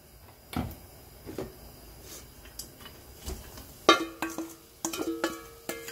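A few faint clinks and knocks of a steel bowl and spatula against a frying pan. About four seconds in, background music of plucked, ringing notes starts.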